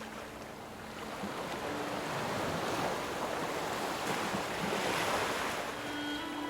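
Ocean waves surging, one swell building for a few seconds and then easing off. Soft background music fades in near the end.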